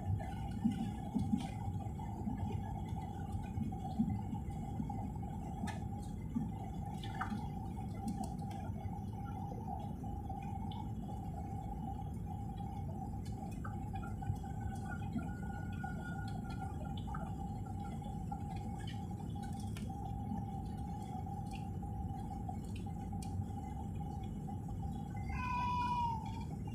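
Airliner cabin noise on final approach and landing: a steady rumble of jet engines and airflow with a constant whine. Near the end, as the plane is on the runway, a brief louder falling whine.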